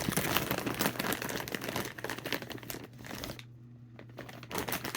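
Plastic snack bag of kettle corn crinkling as it is handled: dense crinkling for about three and a half seconds, then quieter, with a few softer crinkles near the end.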